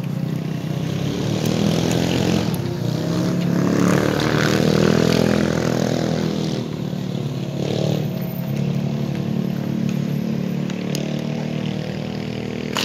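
A motor engine running steadily, swelling louder toward the middle and easing off again, with a few sharp clacks over it.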